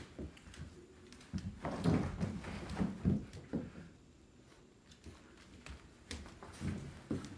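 Wheaten terrier puppy playing with toys on a hardwood floor: irregular scuffling, knocks and soft thumps as plastic ring toys and a fabric mat are grabbed and dragged. The knocks come thickest a second or two in, ease off for a couple of seconds, then pick up again near the end.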